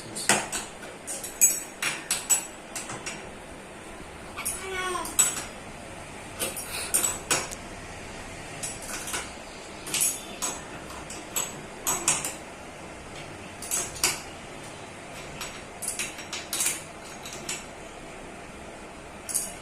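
Irregular light metallic clinks and taps, roughly one every second or so, from hand work adjusting the washing machine's leveling feet so it won't rock. A short spoken phrase comes about five seconds in.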